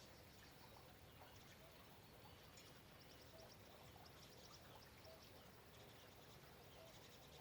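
Faint rain ambience: a low, even hiss of rain, with a short call repeating about every second and a half to two seconds and thin high chirps from small animals such as birds or insects.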